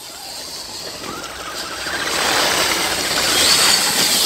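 Electric RC mud truck driving fast through wet mud close by: the motor whines and the tyres churn and spray mud, getting louder as it nears and passing loudest near the end.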